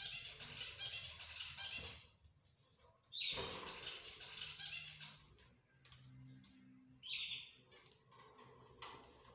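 Mixed cage birds chirping: two bouts of rapid high-pitched chattering notes, one starting with a sharp call about three seconds in, then a few clicks and a single louder call about seven seconds in, with quieter gaps between.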